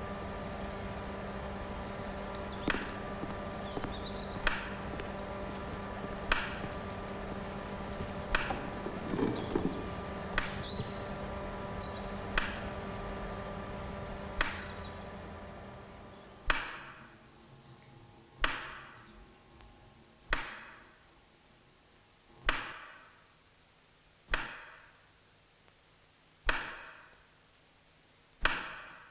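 A steady electrical hum with several fixed tones, under sharp knocks that come about every two seconds. About halfway through the hum fades away, and the knocks carry on alone, each ringing out with an echo.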